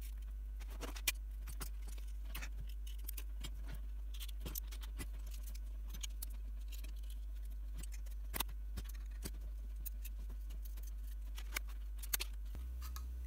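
Scattered small metallic clicks and taps as front-panel hardware (binding posts, nuts, washers) is handled and fitted into a power-supply front panel by hand, over a steady low hum.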